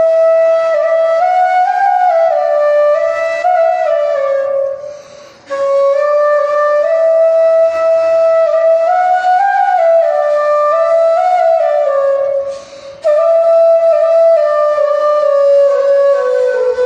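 Background music: a single flute melody played in repeated stepwise phrases, breaking off briefly about five seconds in and again about twelve and a half seconds in.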